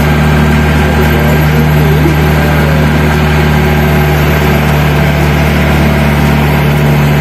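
Engine of a trackless zoo mini train's small tractor-style locomotive running steadily as it pulls the carriages along at walking pace, heard from the carriage close behind it.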